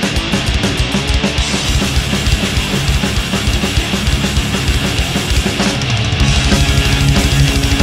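Thrash metal band playing: distorted electric guitar riffing over fast, pounding drums. About six seconds in, the kick drum turns into a rapid stream and the music gets slightly louder.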